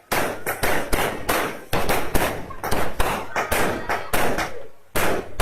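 Fireworks going off in quick, irregular succession: loud sharp bangs several times a second, each with a short ringing tail.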